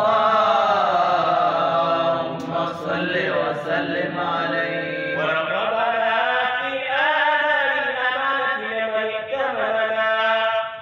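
A man chanting a solo Arabic recitation into a microphone, holding long melismatic notes that glide and waver up and down in pitch without a break.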